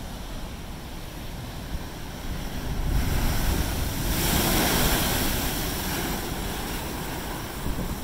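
Big ocean waves breaking on a rocky shore. About three seconds in, one wave crashes over the rocks close by and throws up spray, building to a loud rush about a second later, then dying down into the hiss of foam.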